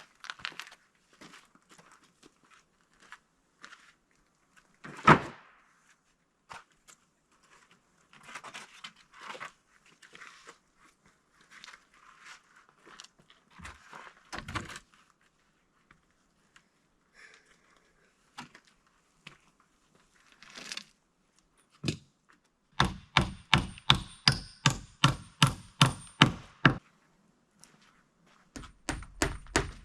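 Hammer driving nails into wooden siding boards of sawmill offcuts. Scattered knocks of boards being handled come first, with one loud knock about five seconds in. Near the end there is a quick, even run of about fourteen hammer blows, and another run of blows starts just before the end.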